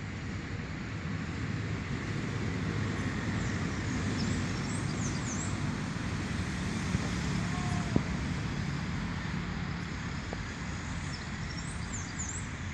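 Steady rumble of road traffic that swells in the middle, with short high bird chirps in two brief bouts and a single sharp click about eight seconds in.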